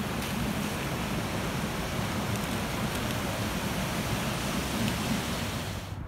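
Kaaterskill Creek's water rushing over rocks in small cascades, a steady rushing noise.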